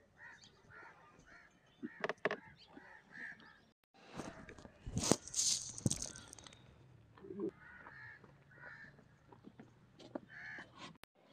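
Chickens clucking now and then while goats feed from a metal bowl of grain mix, with clicks and a louder rustling scrape about four seconds in.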